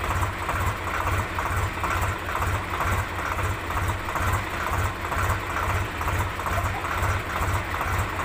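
Tractor engine running steadily, with an even chugging pulse about two to three times a second.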